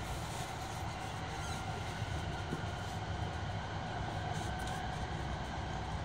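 Steady running noise heard inside the passenger cabin of a Tohoku Shinkansen Hayabusa train on the move: a low rumble, with a couple of faint clicks.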